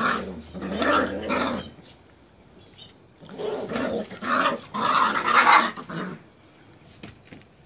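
Two young puppies play-fighting and growling at each other, in two spells: one over the first couple of seconds and a longer one from about three to six seconds in.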